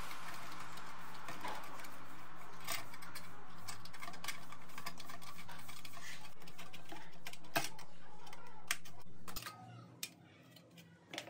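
Hand snips cutting thin sheet metal: sharp clicks and snips at irregular intervals about a second apart, over a steady background hum that drops away about nine seconds in, leaving only a few handling clicks.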